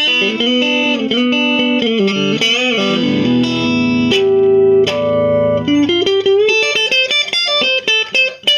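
Squier Classic Vibe '50s Duo-Sonic electric guitar playing a blues lead, with string bends and a long held note, then a run of quicker single notes in the second half.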